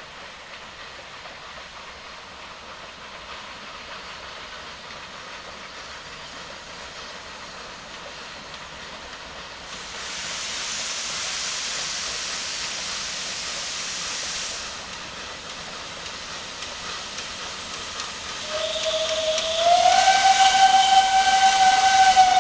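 Approaching steam train heard as a steady hiss and rumble, with a louder stretch of hiss for about five seconds midway. Near the end the steam locomotive's whistle sounds one long, steady blast, stepping up slightly in pitch as it opens fully.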